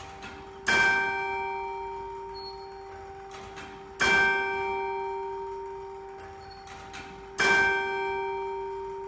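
Hour bell of an 1856 Victorian three-train turret clock striking the hour: three strokes a little over three seconds apart, each ringing on and slowly fading. A faint click from the striking train comes just before each stroke.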